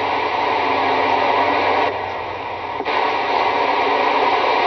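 CB radio static: a steady hiss of band noise through the radio, with no voice on the channel. The hiss drops a little about two seconds in and comes back up about a second later.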